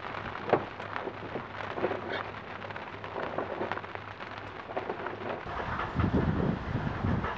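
Rain falling on a sailboat, an even hiss with many scattered drops tapping. About five and a half seconds in, a low rumble comes in and the sound grows louder.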